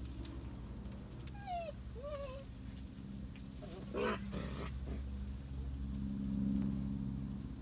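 German Shepherd puppies at play: two short, high whimpering squeaks that slide in pitch, then a louder short yelp about four seconds in. Under them a low steady hum swells near the end.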